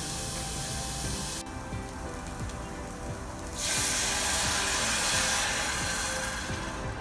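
Onion sautéing in a saucepan, with a steady hiss. About three and a half seconds in, tangerine juice is poured into the hot pan and hisses loudly for about three seconds.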